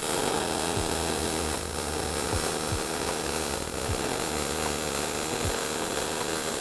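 Argon-shielded electric arc welder running a practice bead. The arc strikes suddenly at the start and then sounds as a steady, unbroken crackling hiss.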